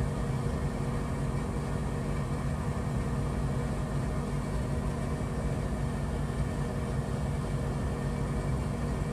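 VEVOR laser fume extractor running at full suction: a steady rush of air with a low motor hum, measured at around 65 decibels about a metre from the unit.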